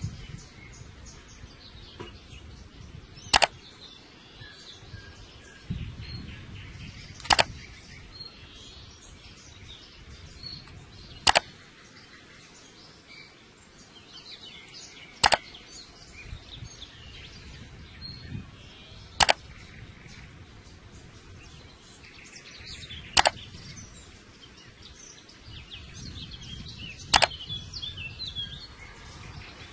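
Faint bird chirping over outdoor background noise, broken by a sharp click about every four seconds.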